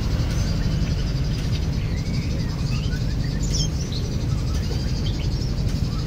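Small birds giving short, scattered chirps over a steady low background rumble.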